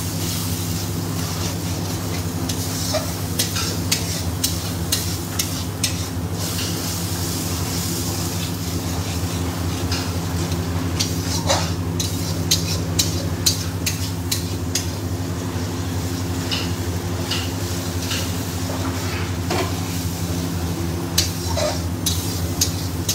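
Onion-ginger-garlic masala paste sizzling in oil in a metal kadhai while a wooden spatula stirs it, with irregular scrapes and taps against the pan. The masala is being fried down until the oil separates. A steady low hum runs underneath.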